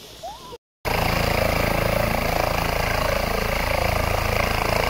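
Helicopter running close by: steady engine noise with a fast, even rotor chop, starting abruptly about a second in.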